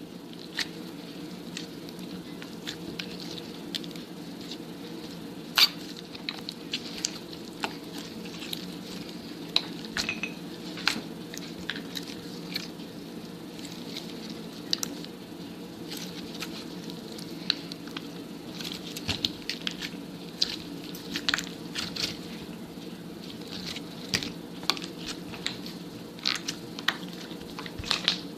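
Slime being squished and worked by hand, giving off many small, irregular sticky clicks and pops over a steady low hum.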